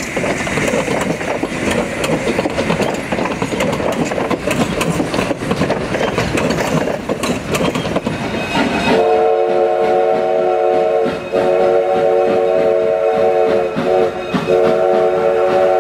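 Durango & Silverton steam locomotive No. 481 pulling out, the running train noisy with wheels clicking over the rail joints as the passenger cars pass. About nine seconds in, the locomotive's chime whistle sounds a steady chord in three long blasts with short breaks between them.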